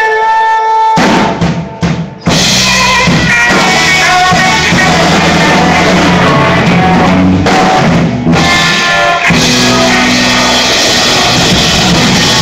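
Small live rock band with drum kit and guitar: a held note at the start, then a few drum hits, and the full band comes in loud about two seconds in. It is recorded through a phone's microphone.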